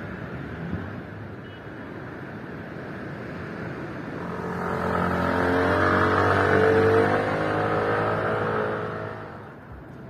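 A motor vehicle passing by: its engine grows louder over a few seconds, is loudest about two-thirds of the way in, then fades away near the end.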